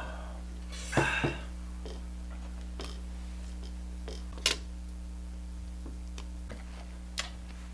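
A few sharp clicks and knocks of glasses and dishes handled on a wooden table, the loudest about a second in and another about four and a half seconds in, over a steady electrical hum.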